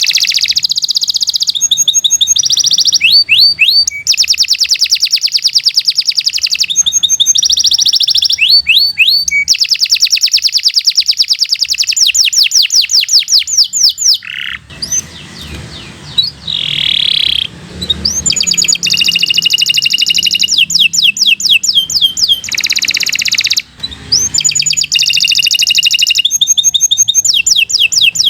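Domestic canary singing a long, unbroken song of fast trills and rapidly repeated notes, switching to a new phrase every second or two. The song drops to a softer passage about halfway through, then comes back at full strength.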